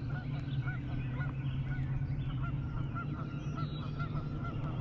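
A flock of geese honking: many short calls overlapping, several a second, over a steady low hum.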